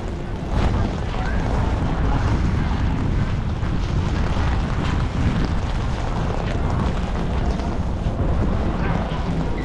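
Strong wind buffeting an action camera's microphone: a steady, loud, low rumble.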